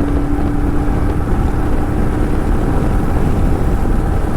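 Motorcycle at highway speed, around 100 km/h, heard through a mic mounted inside the rider's helmet: steady wind and road noise with the engine underneath. A steady engine tone fades out about halfway through.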